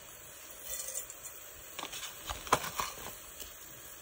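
Mustard seeds starting to pop in hot oil in a stainless-steel pot: a quick cluster of sharp clicks and pops about halfway through, one louder crack among them, over a faint background hiss.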